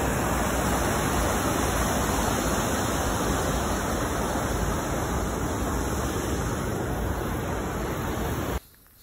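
Steady rush of river water pouring over a low concrete weir, cutting off abruptly near the end.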